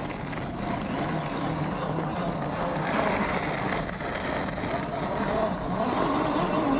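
RC crawler truck's brushed 540 electric motor and gear drive whirring as it drives, with a rough noise of tyres on the ground; the low whine rises a little near the end.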